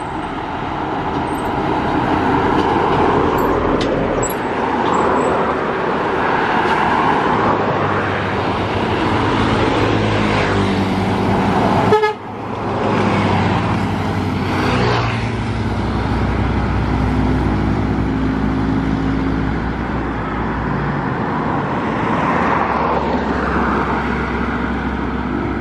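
Heavy lorries and a tour bus passing close on a highway: diesel engines and tyre noise, with a vehicle horn sounding.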